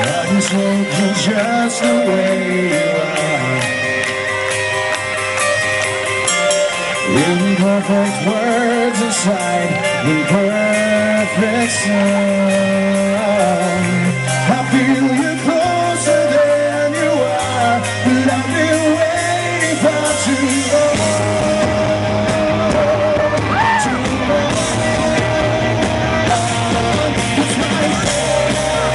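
Live rock band playing a song: a male lead singer over electric guitar, bass and drums, recorded from the crowd.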